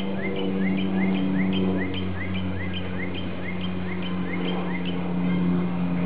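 A bird or small animal calling a rapid, even series of short rising chirps, about three a second, over a steady low hum.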